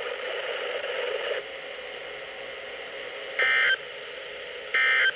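Two short bursts of NOAA Weather Radio SAME (EAS) digital data tones, each a brief high electronic buzz, about a second and a half apart, over radio hiss.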